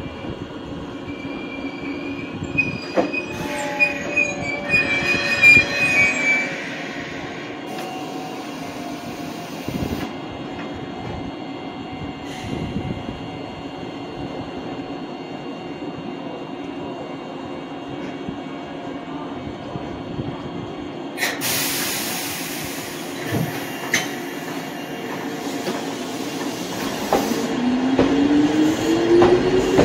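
Izu-Hakone Railway Sunzu Line electric train: wheels squeal in the first few seconds over a steady rumble of the train. A sudden loud hiss of air comes a little after twenty seconds, and near the end a whine rises steadily in pitch as the motors drive it away.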